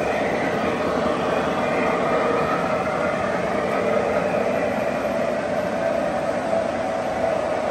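Model freight train of refrigerator cars rolling steadily past, a continuous rumble of its wheels on the track.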